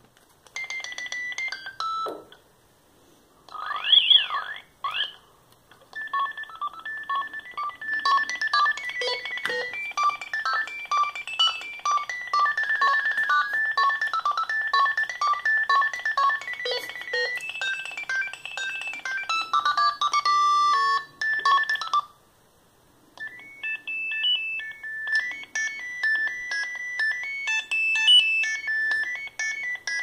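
Philips Fisio 620 mobile phone playing its built-in ringtones through its small speaker: electronic beeping melodies one after another. A short tune stops about two seconds in, a few seconds of rising and falling sweeps follow, then a longer tune with several notes at once runs until it stops about 22 seconds in, and after a short gap another tune begins.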